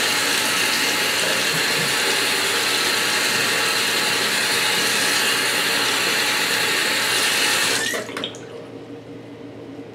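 Bathroom sink faucet running a steady stream of hot water over a plastic toy pony, shut off near the end.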